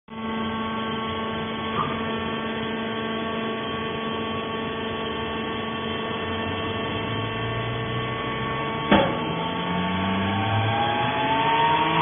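Vertical hydraulic baler's power unit (electric motor and hydraulic pump) running with a steady hum. There is a small click a little before two seconds in and a sharp knock about nine seconds in. From about seven seconds on, a slowly rising whine joins and the sound grows a little louder.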